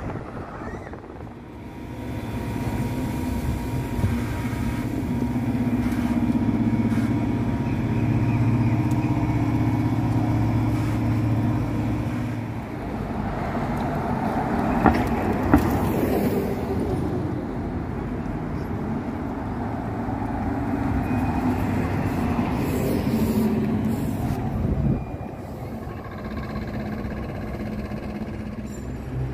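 BKM-321 trolleybuses and street traffic passing: a steady low drone of vehicles with a faint held tone, broken by two sharp clicks about halfway through.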